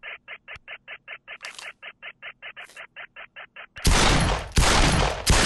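A rapid volley of pistol gunfire breaks out about four seconds in, a dense, loud burst of shots that runs on past the end. Before it, a steady quick pulsing at about six beats a second.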